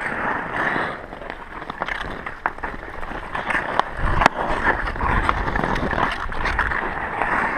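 Ice skates scraping and gliding on rough outdoor rink ice, with short sharp clacks of hockey sticks on the ice and ball. One loud crack comes about four seconds in.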